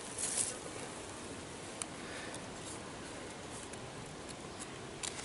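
Quiet handling of fishing tackle: a short rustle just after the start as a knife is set down on the mat, then a few faint clicks as the leader and swivel are worked by hand, over a steady outdoor background hiss.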